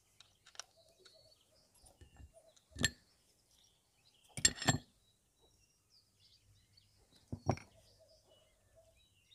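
Steel kick-start parts of a Honda Tact AB07 scooter (spindle, driven gear and ratchet pinion) clinking together as they are handled: one clink about three seconds in, a quick double clink about four and a half seconds in, and another near seven and a half seconds.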